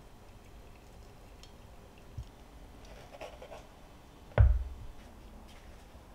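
Teaware and small objects being handled on a wooden board: a light knock about two seconds in, soft clinks and rustles a second later, then a single dull thump a little after four seconds, the loudest sound.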